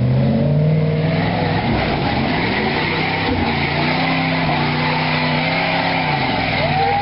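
Chevy pickup's engine revving under load as it drives through mud, its pitch rising and falling.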